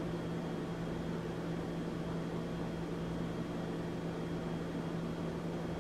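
Steady low electrical hum under an even background hiss: indoor room tone with no other event.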